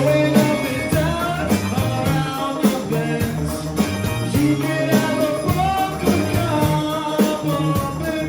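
Band playing a rock song, with a singer's voice over the instruments and a steady drum beat.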